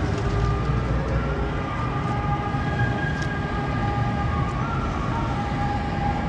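Steady noise of heavy, slow-moving road traffic, a constant low rumble of car engines and tyres. Several long, drawn-out high tones sound over it and come and go.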